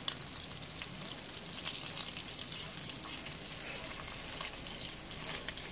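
Butter sizzling in a frying pan over medium heat, a steady hiss with scattered small pops, as it melts and browns.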